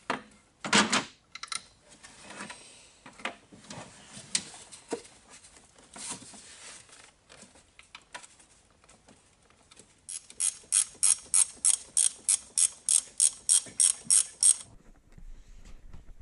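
Hand ratchet wrench clicking at an even pace, about four clicks a second, for several seconds from about ten seconds in. Before that come scattered metallic clinks and knocks of tools against metal, the loudest one about a second in.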